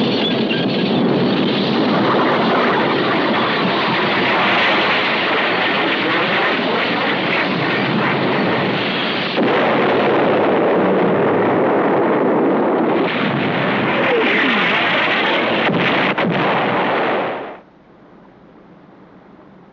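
Continuous din of battle sound: explosions and gunfire, loud and dense throughout, breaking off suddenly near the end.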